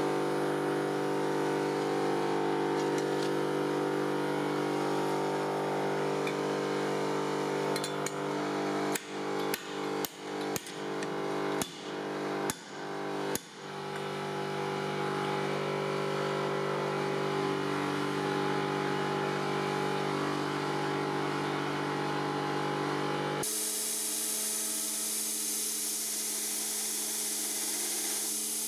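A power tool's motor running steadily, with about six brief dips in the sound between nine and thirteen seconds in. Near the end it gives way abruptly to a steady hiss.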